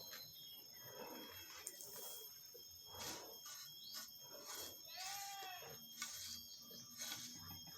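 Sand being sifted, a run of short rasping swishes about one every half second to a second. About five seconds in there is one short animal call that bends in pitch.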